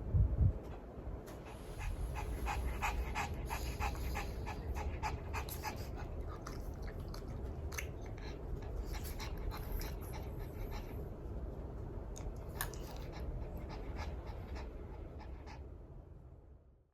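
A small dog panting in quick, rhythmic strokes over a steady low hum, with a single low thump just after the start; the sound fades out at the end.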